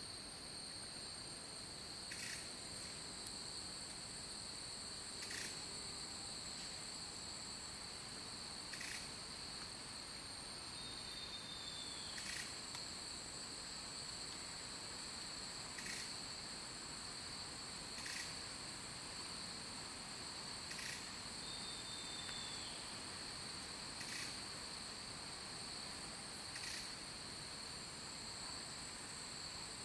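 Rainforest insects droning steadily at two high pitches, with a sharp click every two to three seconds and a short falling note twice.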